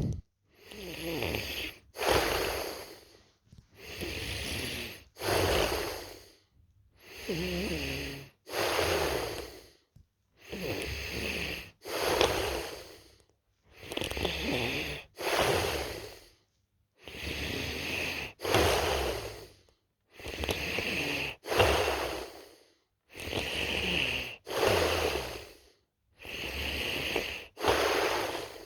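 A person snoring in her sleep: regular noisy breaths, each in two back-to-back parts, about one breath every three and a half seconds.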